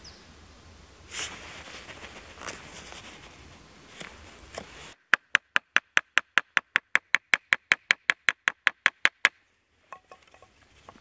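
A Mora Bushcraft Black carbon-steel knife cutting into a wooden stick to carve a notch. First come a few single shaving strokes about a second apart. Then, about five seconds in, a wooden baton taps the knife's spine quickly and evenly, about five sharp taps a second for some four seconds, driving the blade into the wood.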